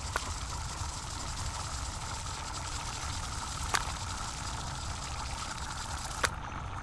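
Sound-design ambience: a steady low rumble under a hiss, broken by three sharp clicks, one just after the start, one about halfway and one near the end.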